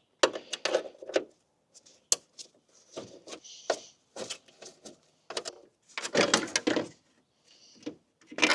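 Hand work on a Range Rover L322's plastic front grille and bumper trim as they are taken off: a run of sharp clicks, snaps and knocks with short scrapes, busiest about six seconds in.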